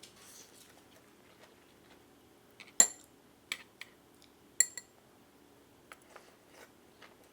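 Eating utensils clinking against dishes during a meal: two sharp, ringing clinks near three and near four and a half seconds in, among lighter taps and clicks.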